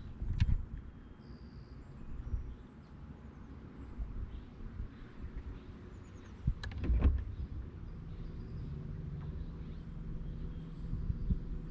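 Low wind and water noise on a bass boat's deck, with a dull knock about half a second in and another around seven seconds. From about seven to eight seconds in, a steady low electric hum from the bow-mounted trolling motor running.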